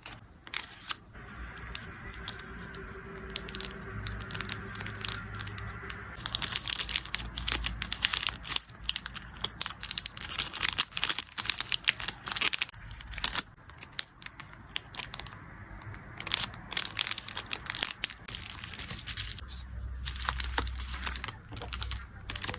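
Plastic packaging crinkling and rustling as photocards are handled and packed, with many short, sharp crackles coming irregularly.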